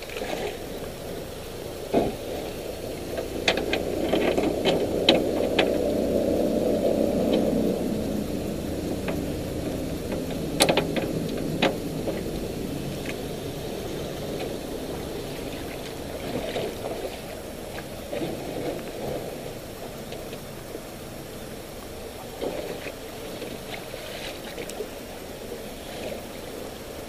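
Handling noise around a small aluminium boat: scattered sharp knocks and clicks over a low rustling rumble, which is strongest from about three to eight seconds in.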